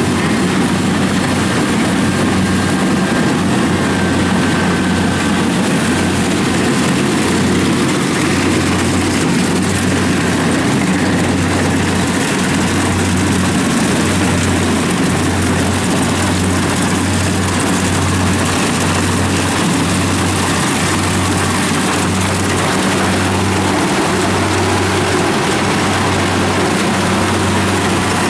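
Kubota combine harvester running while cutting and threshing rice: a loud, steady diesel drone with a low throb that pulses about once a second.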